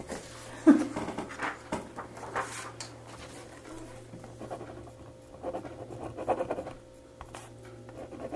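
Pen scratching on paper in short, irregular strokes with pauses, as a name is written down. A faint steady electrical hum runs underneath.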